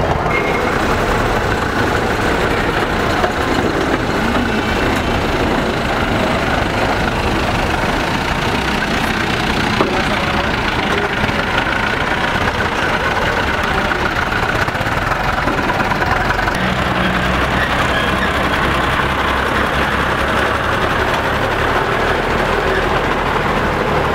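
Engines of vintage lorries and vans running at low speed as they drive slowly past. About two-thirds of the way through, a deeper, steadier engine comes to the front.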